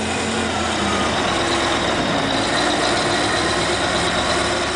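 Diesel engine of heavy earthmoving machinery running steadily under load, a dense mechanical noise with faint whining tones that drift slightly in pitch.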